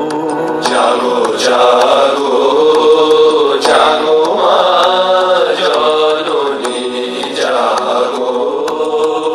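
Devotional music: a voice singing a chant-like melody in long, gliding phrases over steady instrumental accompaniment with light percussion.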